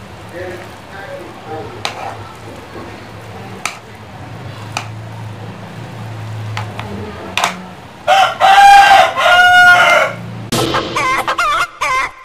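A rooster crows loudly about eight seconds in, one long call in two parts, followed by quick wavering calls. Before it, faint clicks of metal chopsticks against a pan of noodles.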